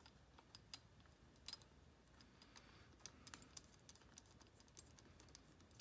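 Faint, scattered metallic clicks of a flywheel puller's bolts being threaded by hand into an outboard motor's flywheel.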